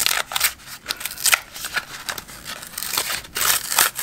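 A paper mystery-pack wrapper being torn open and peeled back by hand: irregular tearing and crinkling of paper.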